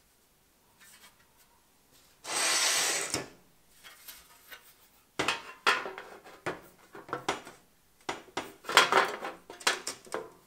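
Folded aluminium sheet fan shroud being handled and pushed down over an alloy radiator core. There is a scraping rush lasting about a second, two seconds in. From about halfway, a run of light metal knocks, clatter and rubbing follows as the shroud is pressed onto the core, a tight fit.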